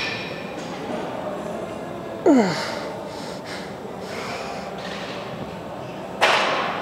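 A weightlifter's forceful breathing under strain: a sharp breath out with a groan falling in pitch about two seconds in, and a hard, hissing exhale near the end.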